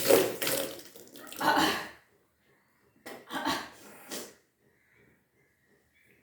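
A person retching and throwing up water in two gushing bouts, the first about two seconds long and the second shorter, with water splashing down. The vomiting is deliberately induced: the kunjal kriya yogic cleanse of bringing back up a large amount of drunk water.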